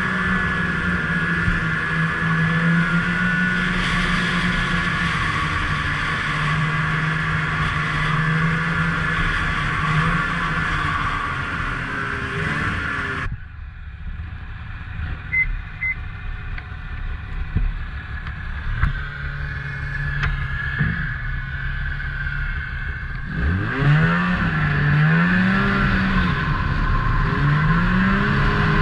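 Ski-Doo snowmobile engine running under way. About halfway through it falls to a quieter, lower running, then near the end it revs up again, its pitch rising and falling twice before it settles into a steady louder run.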